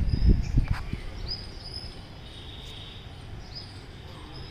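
Birds chirping, short high calls repeated every second or so, over a faint steady buzz of insects. A low rumble with thumps in the first second is louder than the calls.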